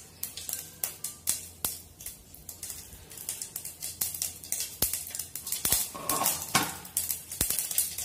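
Mustard seeds popping and spluttering in hot oil in a steel pan, with sharp, irregular pops throughout. The spluttering is the cue that the tempering is ready for the next ingredients.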